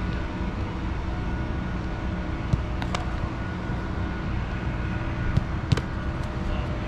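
A few sharp thuds of soccer balls being struck during goalkeeper shot-stopping drills, two around the middle and two more later, over a steady low outdoor rumble.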